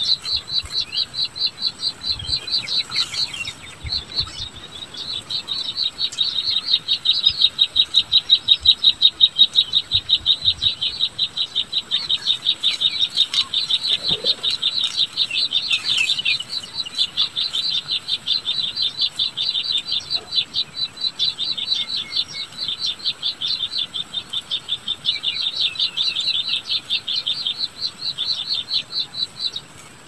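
Rapid, high-pitched pulsed chirping, several short pulses a second, swelling and fading in loudness.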